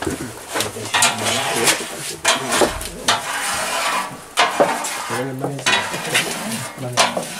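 A brush rubbing oil over a large round metal socca pan, with irregular scraping strokes and light knocks of metal.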